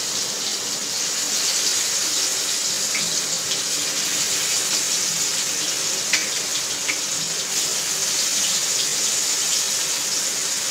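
Masala-coated pieces of dried ribbonfish (vaalai karuvadu) frying in hot oil in a shallow pan: a steady sizzle with a few sharp pops.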